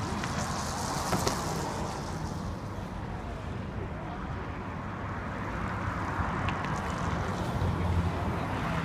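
Steady city traffic noise, with wind rumbling on the microphone.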